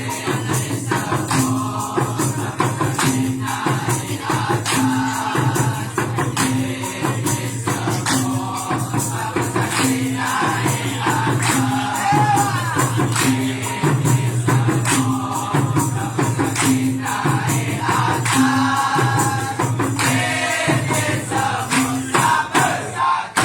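Dikir barat ensemble playing between verses: hand drums and jingling percussion keep a steady beat under a low note struck about every second and a bit, with the chorus singing in places.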